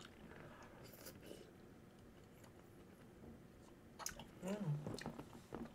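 Soft, close chewing of chewy tteokbokki rice cakes in sauce, with faint wet mouth clicks. A short hummed voice sound comes about four and a half seconds in.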